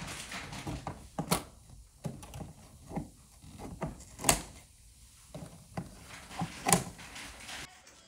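Scissors cutting the plastic packing straps on a cardboard dehumidifier box: a run of sharp snips and snaps with rustling and knocking of the box in between. The three loudest snaps come about a second, four seconds and nearly seven seconds in.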